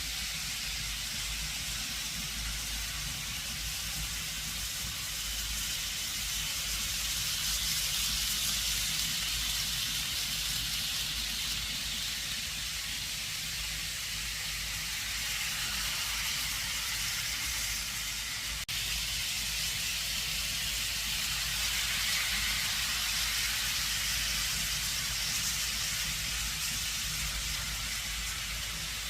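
Model trains running on a layout's track: a steady hiss and low rumble of wheels and motors, swelling a little at times as trains pass close, with a sudden change about two-thirds of the way through.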